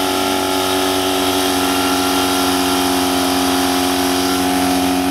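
Portable fire pump's engine running at a steady pitch, pumping water into the hose lines.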